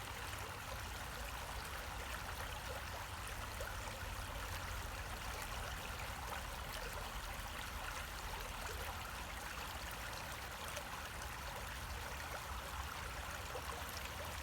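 Creek water flowing and trickling in a steady rushing hiss, with a steady low rumble underneath.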